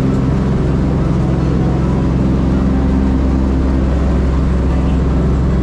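Steady drone of a vintage transport plane's piston engines in flight, heard from inside the cabin with rushing airflow.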